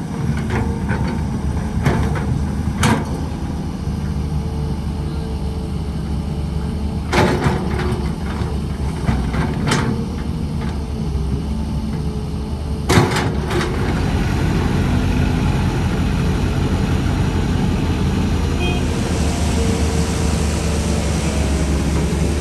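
Excavator's diesel engine running steadily under work, with several sharp clanks and knocks of the bucket and machine. The noise rises about two-thirds of the way through and turns hissier near the end.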